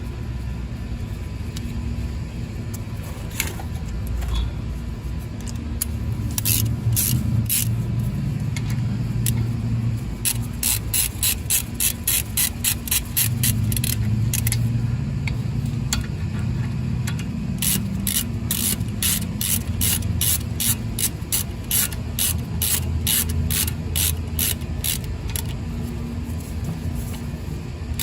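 Socket ratchet clicking in quick runs while the brake caliper bolts are turned in, about three or four clicks a second, over a low steady rumble.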